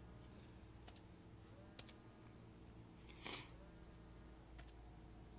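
Faint taps and dabs of a foam sponge dauber on a plastic paint palette and a wet paper towel: a few soft clicks, and one louder, brief hiss about three seconds in.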